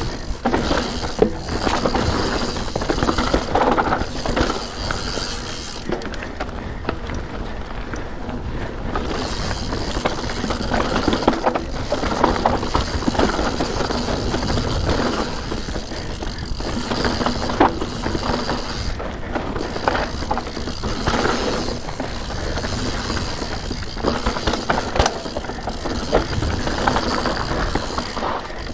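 Santa Cruz Nomad 4 full-suspension mountain bike running fast down rough, rocky singletrack: tyres rolling over dirt and stones, with a steady rattle from the bike and many sharp knocks as it hits rocks.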